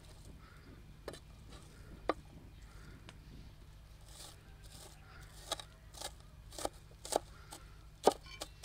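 A series of short, sharp clicks and knocks of kitchen work: two isolated ones early, then a run of about two a second through the second half, over a steady low hum.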